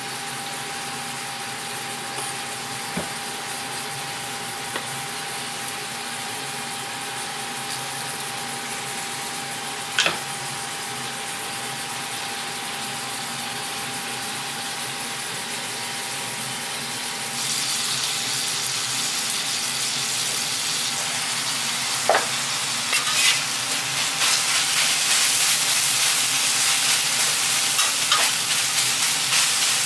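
Steady kitchen hiss with a faint steady tone and a few isolated clicks. About halfway through, sliced beef, onions and green peppers start sizzling on a flat-top griddle, getting louder and crackling toward the end.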